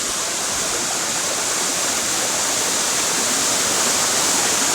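Steady rush of water pouring down a waterfall, an even, unbroken noise.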